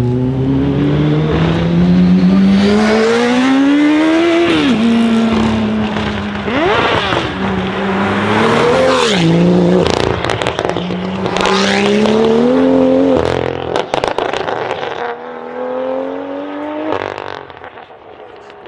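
BMW M2 F87's turbocharged straight-six, through a decatted Fi exhaust, accelerating hard. The engine note climbs and drops sharply at each gear change, four times over, with sharp crackles around the shifts in the middle. It fades near the end as the car moves away.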